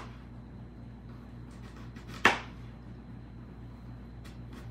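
Kitchen knife slicing red onion on a plastic cutting board: one sharp knock of the blade on the board a little past halfway, with a few faint ticks near the end.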